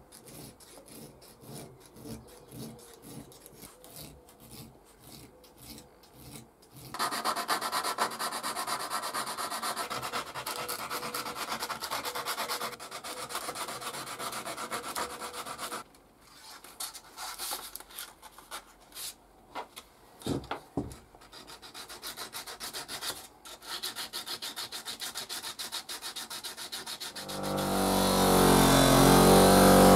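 Abrasive paper rubbed by hand against a small steel hand-plane part, as strokes that grow louder and steadier after a few seconds and pause now and then. Near the end a bench buffing wheel's motor starts and runs with a steady hum.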